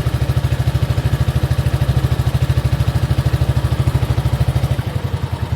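A small boat's engine comes in abruptly and runs steadily, with an even rapid thudding of about fourteen beats a second.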